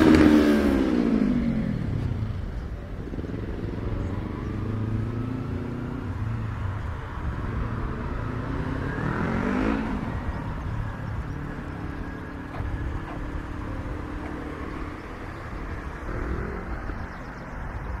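City street traffic. A loud motor vehicle passes at the start, its engine note falling in pitch as it moves away. Another vehicle approaches and passes about nine to ten seconds in, over a steady background of traffic.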